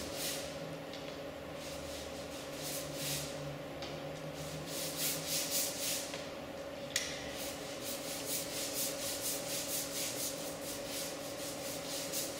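A wide flat watercolour brush swept back and forth over wet paper, a run of rhythmic swishing strokes. They come slowly at first, then quicken to several strokes a second after a sharp tap about seven seconds in.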